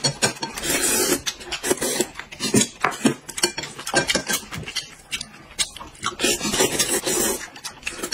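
Eating sounds: chewing, lip-smacking and slurping as corn on the cob and noodles are eaten, a dense run of short wet smacks, with clicks of chopsticks against dishes.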